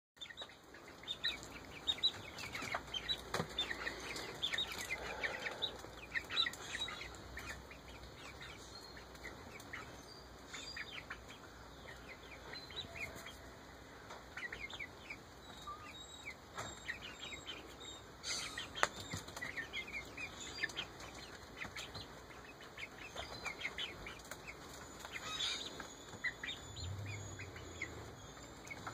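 Eight-week-old Ameraucana chickens chirping and peeping in short, scattered calls, busiest in the first few seconds and again later on, with a few sharp clicks.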